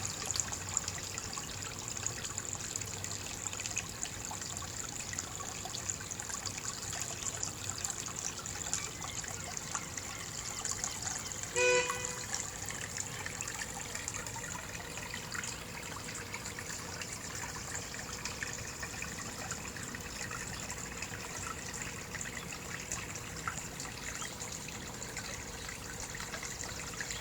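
Water trickling and babbling steadily over a small water feature, a mini brook. About twelve seconds in, a single short beep-like tone sounds over it.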